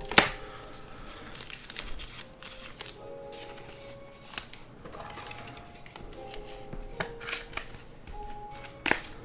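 Faint background music with sustained notes, under scattered light clicks and taps from a trading card being handled, turned over and set down; the sharpest taps come right at the start, a little past the middle, and near the end.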